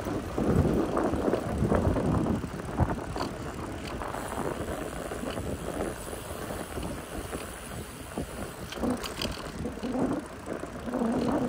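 Wind buffeting the microphone of a moving bicycle: a rough rushing noise that rises and falls.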